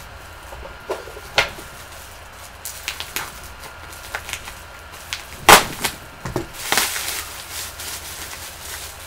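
Packaging around trading cards being unwrapped by hand: irregular crinkles, crackles and snaps, the loudest a sharp snap about five and a half seconds in, followed by a short rustle.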